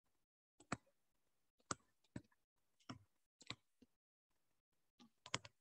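About a dozen faint, irregular clicks of a stylus tapping on a digital writing surface during handwriting, with a quick cluster near the end.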